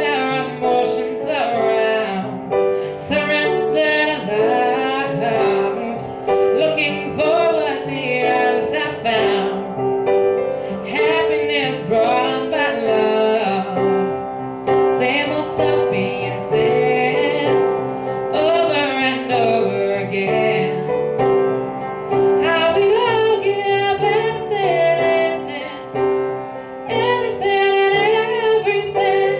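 A young woman singing a pop ballad live, accompanied by her own piano chords, with phrases of melody over steadily held chords.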